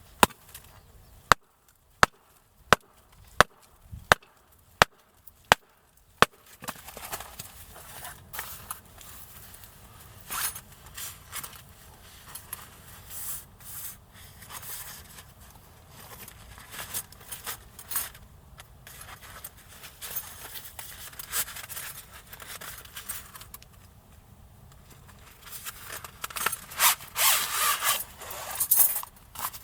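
Firewood being worked by hand: about nine sharp knocks at an even pace, like a blade being struck through a piece of wood to split it, then a long stretch of scraping and rubbing as wood is shaved or worked for kindling, growing busier near the end.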